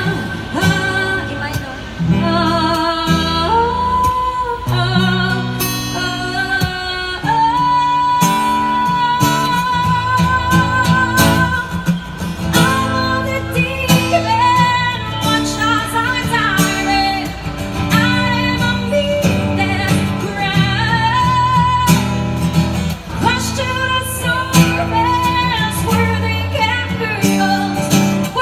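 Acoustic guitar strummed to accompany a woman singing, with a long held note from about seven seconds in to about twelve.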